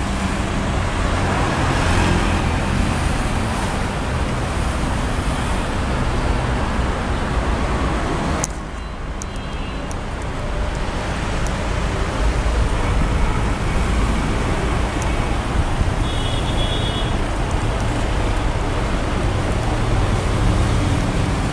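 City street traffic: car engines running and idling, with steady road noise. A sharp click about eight seconds in.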